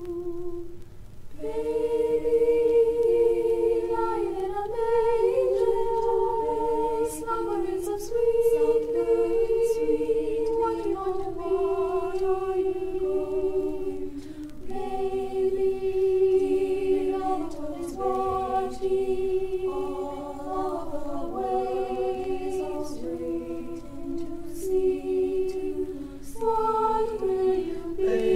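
Mixed-voice choir of sopranos, altos, tenors and basses singing a Christmas carol a cappella in several parts, with a brief break about a second in before the voices come back in.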